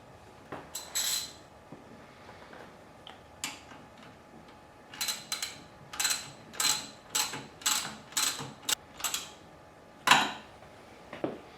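Hand work on metal motorcycle parts: a few scattered clicks and scrapes, then a run of short, evenly spaced strokes about two a second, ending with one louder stroke.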